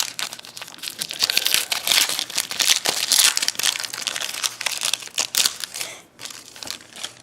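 Plastic-foil wrapper of a pack of trading cards being torn open and crinkled, a dense run of sharp crackles that thins out about six seconds in.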